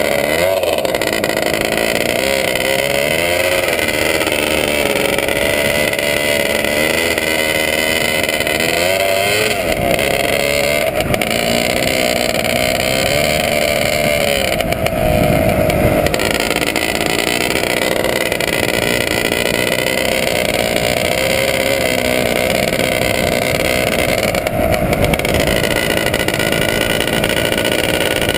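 ČZ 250cc two-stroke motocross bike running hard while towing a skier, its engine pitch repeatedly rising and falling as the throttle is worked, with a deeper dip about halfway through. A steady rush of wind and snow runs under it.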